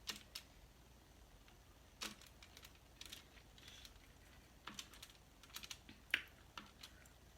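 Close-up eating sounds: faint, irregular clicks and smacks of someone chewing and handling seafood, about a dozen short ticks spread unevenly over several seconds.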